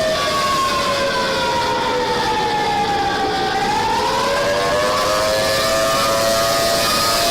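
Civil defense siren wailing with several tones sounding together: the pitch slides slowly down for about three and a half seconds, then climbs back up and holds steady.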